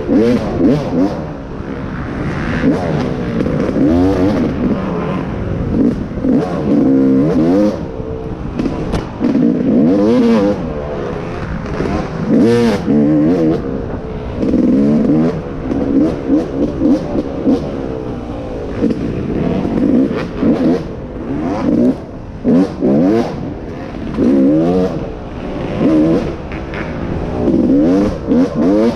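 Off-road racing dirt bike engine revving up and down over and over as the rider accelerates and backs off, with scattered sharp knocks throughout.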